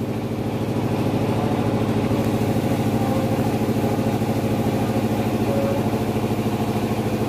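25 kVA diesel generator running steadily at constant speed: an even engine drone with a fast, regular pulse that does not change.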